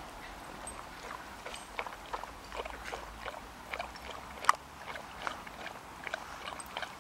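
Dogs wrestling in play on loose wood chips: an irregular run of short crunches and clicks from their paws scuffling, the sharpest about four and a half seconds in.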